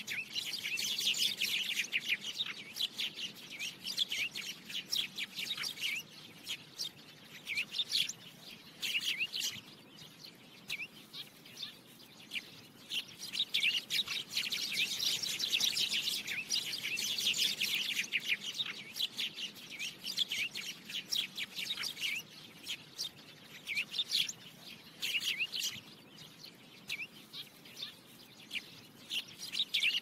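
Birds chirping in quick runs of short high notes that come and go in bouts.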